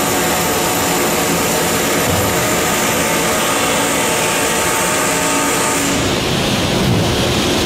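Continuous fish frying machine running: a loud, steady industrial drone of motors with several steady hum tones and a high hiss. About six seconds in the sound shifts, losing its high hiss and taking on a lower rumble.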